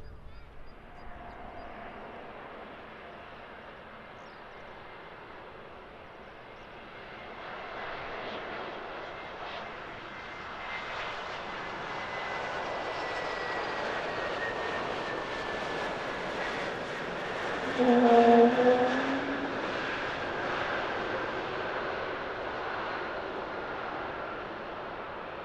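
Airbus A321neo jet airliner landing: its engine noise swells as it comes in, touches down and rolls out along the runway, with a thin fan whine slowly falling in pitch. About three-quarters through there is one short, loud tone, the loudest moment.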